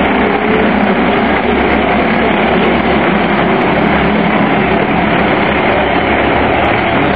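A pack of minicup race cars running together around the oval behind the pace truck, heard as a loud, steady, dense engine drone.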